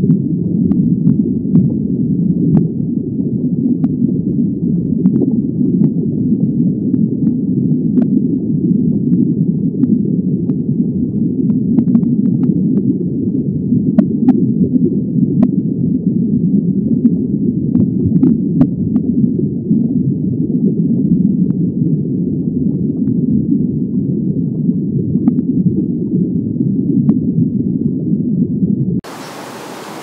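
Underwater ambience: a steady, muffled low rumble with scattered faint clicks. About a second before the end it gives way to a quieter, thinner outdoor hiss.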